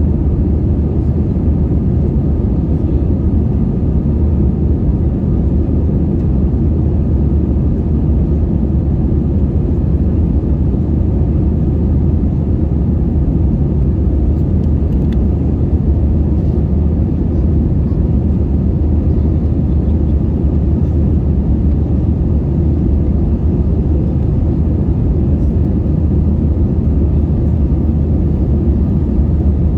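Cabin noise of an Airbus A320-214 in flight, heard inside the cabin: a steady low rumble of the CFM56 engines and the airflow, holding an even level throughout.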